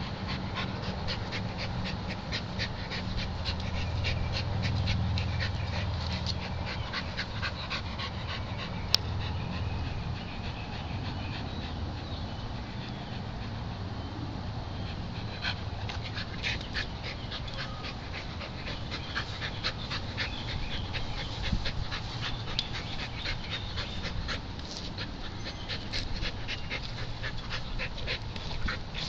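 A dog panting quickly and steadily, over a low steady hum, with one sharp click about nine seconds in.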